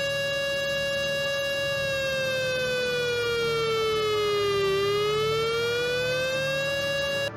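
Civil-defence air-raid siren sounding the South Korean air strike warning: a steady wail that slowly sinks in pitch to a low point a little past the middle, climbs back up, and breaks off at the very end.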